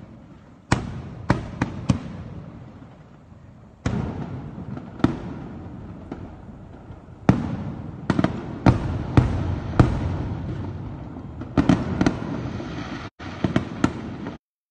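Aerial firework shells bursting: a string of sharp bangs, some in quick clusters of two or three, each trailing off in a rumble. The sound cuts off abruptly near the end.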